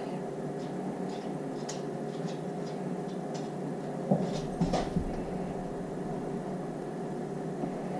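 Steady hum of cooling fans around a battery spot welder, with light ticks and then a few sharp snaps about four to five seconds in as the welder fires on the nickel strip.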